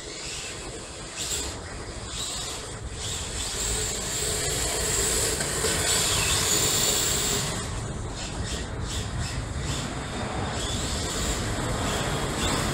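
Yokomo Drift Master rear-wheel-drive RC drift cars sliding across a polished stone floor: a steady hiss of tyres scrubbing sideways under the whine of their electric motors. It grows loudest around the middle as a car drifts past close by.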